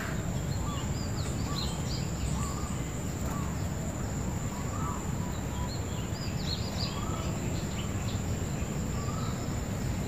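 Outdoor ambience: small birds chirping again and again, short scattered calls, over a steady low rumble, with a thin steady high-pitched whine throughout.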